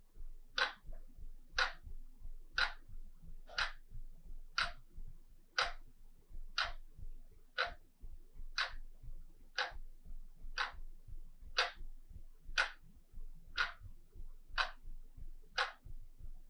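Wall clock ticking steadily at one tick a second, each tick a short sharp click.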